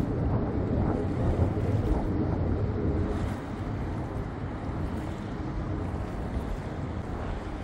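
Wind buffeting the microphone over a steady low rumble of boat and water noise on open harbour water.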